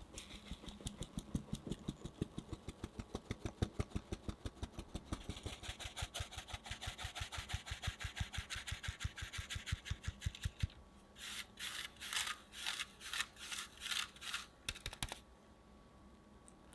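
Flour being sifted through a fine mesh sieve into a glass bowl: quick, even taps on the sieve, about five a second, for some ten seconds. Then comes a run of shorter, hissing shakes that stops about fifteen seconds in.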